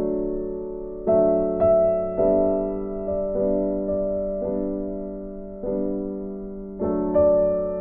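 Soft background piano music: slow chords struck every second or so, each fading before the next.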